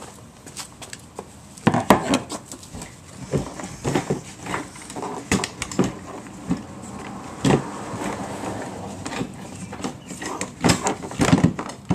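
Saab 9-3 fuel pump module being worked by hand out of the plastic fuel tank opening: irregular knocks, clicks and scrapes of plastic against the tank and fittings, with glove rustle, in a tight space.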